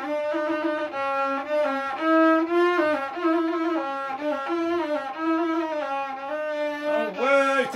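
Bedouin rababa, a bowed spike fiddle with a square skin-covered body and a single horsehair string, playing a melody that steps back and forth between a few neighbouring notes.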